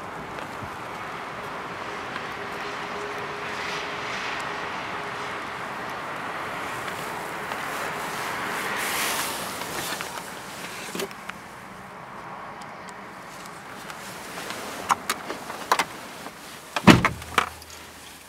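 A steady rushing noise that swells and fades at about nine seconds, then scattered clicks and knocks as someone settles into the driver's seat of a 2003 Mitsubishi Colt, ending with the driver's door shutting with a solid thud about a second before the end.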